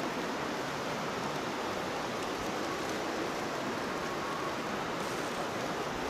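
The Iya River rushing over boulders below, a steady hiss of running water.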